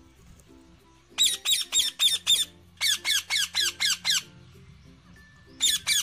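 Rose-ringed parakeets screeching in rapid shrill runs of about five calls a second: two runs of a second or so each, then another starting near the end. Faint background music plays underneath.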